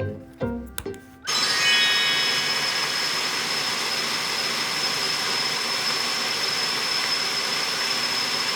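A small electric motor appliance starts suddenly about a second in and runs steadily, a loud even rush with a high, steady whine.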